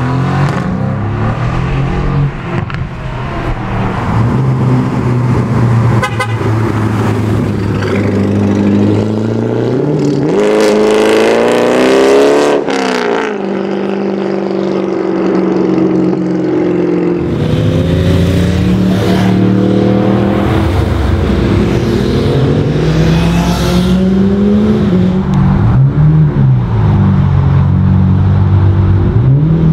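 Several high-performance car engines accelerating and revving one after another as the cars pass. First a Mercedes-AMG GT's V8. About ten seconds in, one engine revs sharply upward and then cuts back. Near the end a Lamborghini Murciélago's V12 is heard.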